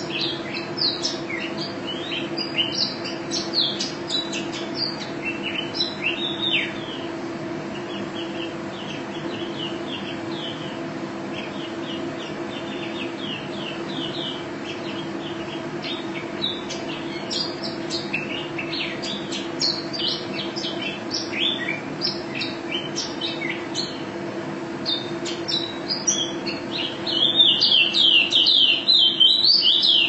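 Female white-eye (pleci) singing a long, unbroken stream of quick, high chirping notes, with a denser, louder run of song near the end. A steady low hum sits beneath it.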